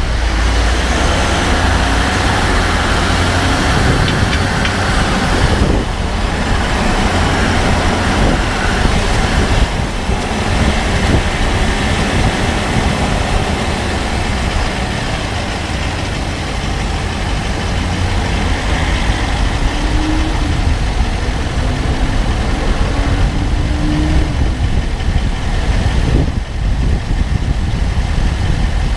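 Steady running noise of a 2014 Range Rover Sport SDV8, whose 4.4-litre V8 diesel engine and vehicle noise hold level throughout, with a deep low rumble.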